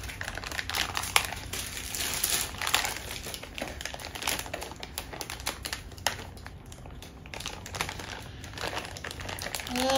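Toy blind-bag packaging crinkling and rustling in a child's hands, a quick irregular crackle as the bag is squeezed and worked open.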